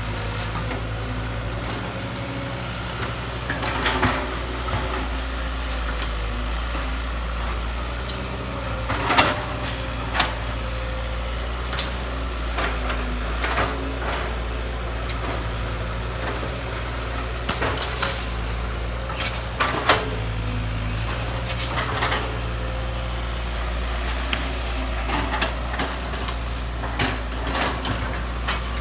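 Kobelco excavator's diesel engine running steadily, with scattered metallic knocks and clanks, the loudest about nine seconds in and again near twenty seconds.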